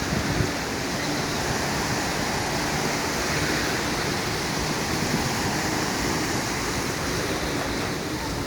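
Steady wash of sea surf breaking on a beach.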